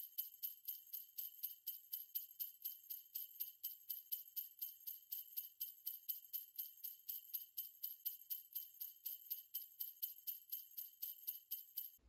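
Sleigh bells jingling in a quick, even rhythm, about four shakes a second, cutting off at the end.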